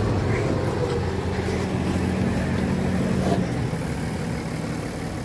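Massey Ferguson 7715S tractor's engine running steadily under load while pulling a disc harrow, gradually fading lower toward the end.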